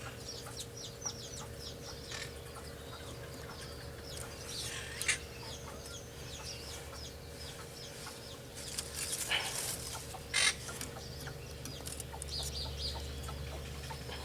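Chickens clucking and small birds chirping in short, scattered calls, over a steady faint hum.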